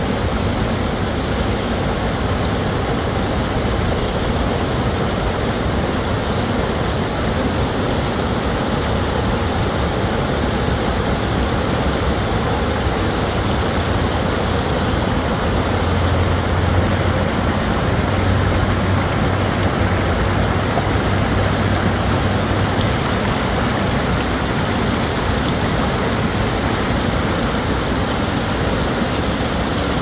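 Snowmelt creek water cascading over granite at the brink of a waterfall: a loud, steady rush of white water. A deeper rumble in it swells for several seconds just past the middle.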